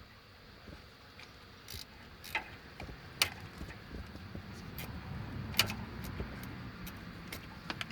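Ratchet spanner and metal tools clicking and clinking while a bolt is undone: irregular sharp clicks over a faint low rumble.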